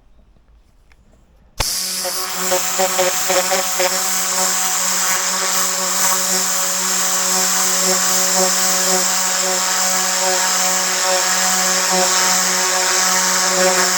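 Tornador compressed-air cleaning gun triggered about a second and a half in, then running steadily: a loud rush of air with a buzzing, fluttering whir from its whipping nozzle tube as it blasts a floor mat.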